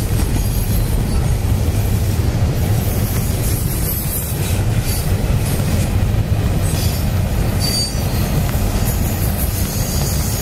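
CSX double-stack intermodal freight train rolling past, its container cars making a steady low rumble of wheels on rail.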